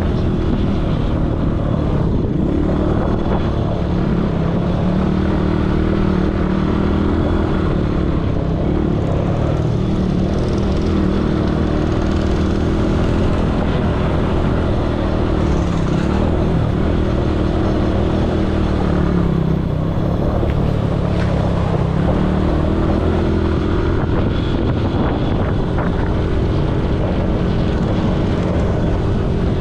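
ATV engine running steadily while the quad is ridden, its pitch dipping and rising a little with the throttle.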